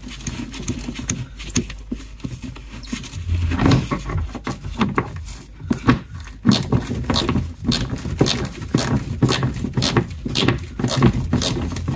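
Scraping and rustling of a gloved hand working behind a car's plastic wheel-arch liner, turning into a quick run of clicks and knocks from about halfway through, over a low steady hum.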